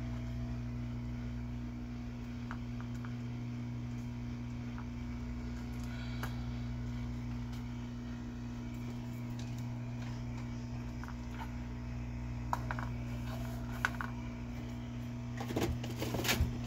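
Handheld hot air gun running steadily with a low hum and a rush of air as it heats a circuit board for desoldering. A few light clicks come late on, and a louder clatter of knocks comes just before the end.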